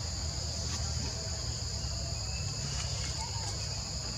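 A steady, high insect chorus drones without a break, with a low rumble underneath and a couple of faint short chirps about three seconds in.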